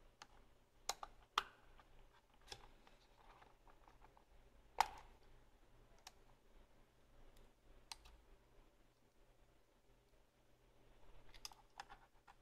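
Sparse small clicks and taps of a tiny screw, a small screwdriver and the camera's thin metal parts being handled, with the sharpest click about five seconds in and a quick run of clicks near the end.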